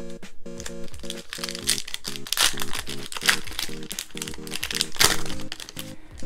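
Foil booster pack wrapper crinkling as it is pulled open, in bursts through the middle and with a sharp crackle about five seconds in. Underneath runs 8-bit lo-fi background music with a steady repeating melody.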